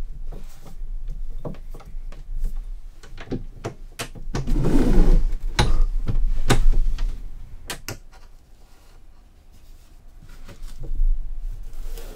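Large manual guillotine paper cutter in use: clicks and knocks as the clamp is tightened, then, around the middle, a rough shearing swell as the blade is pulled down through the sewn paper text block, with several sharp clunks from the lever and blade.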